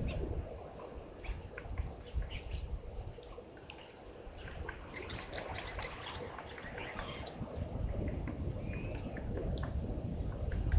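Insects chirring in a steady high drone over the bush, with a low rumble underneath and scattered faint clicks.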